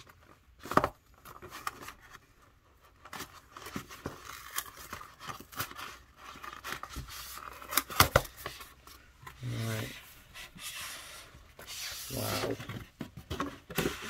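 Cardboard record mailer being handled and pulled open: cardboard rubbing and scraping, a few sharp knocks and clicks, the loudest about eight seconds in, and some rustling of the bubble-wrapped record inside near the end.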